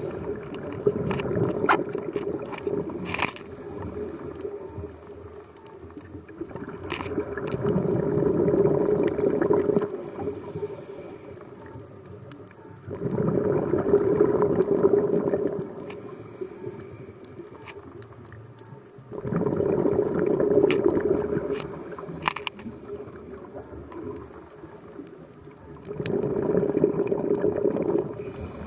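Scuba diver's regulator exhaust bubbles heard underwater: a rushing burst of bubbling about every six seconds with each breath out, five times, with quieter breathing between and scattered sharp clicks.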